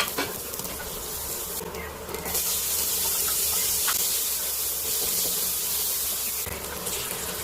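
Food sizzling in a hot pan, a steady hiss that dips twice, with a sharp click at the very start.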